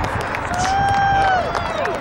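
Spectators cheering and clapping at a rugby match. One voice holds a long, high yell that falls away at the end.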